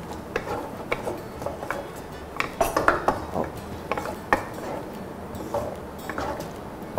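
Wooden spatula stirring diced vegetables in a wok, with irregular light scrapes and taps against the pan. The vegetables are being pushed gently through a thin cornstarch glaze over low heat.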